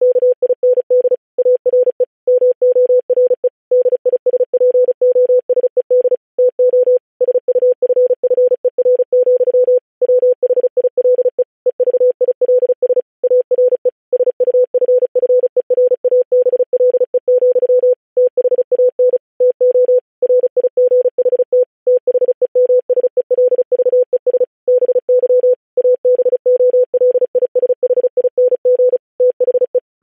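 Computer-generated Morse code (CW) sent at 35 words per minute with standard spacing: a single steady tone keyed rapidly on and off in dots and dashes, with short gaps between letters and words.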